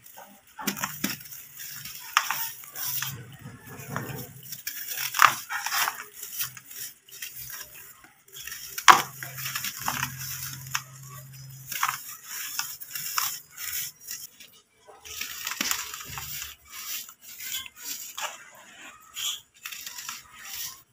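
Dry, dusty balls of brick dirt crushed and crumbled by hand: irregular gritty crunches and cracks as the lumps break, with loose dust and crumbs trickling down between them. The sharpest cracks come about five and nine seconds in.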